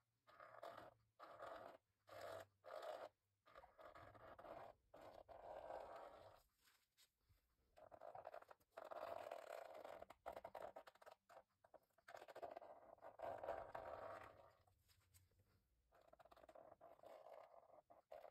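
Faint scraping and scratching of a tool dragged through wet acrylic paint on the painting surface, in uneven strokes: a run of short quick strokes at first, then longer drawn-out ones with short pauses between.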